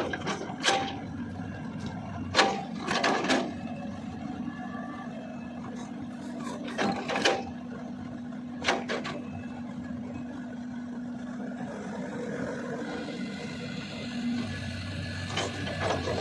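Cat 320D L long-arm excavator's diesel engine running at a steady pitch, with sharp knocks and clanks from the working bucket and arm at irregular intervals, the loudest near the start and about seven seconds in.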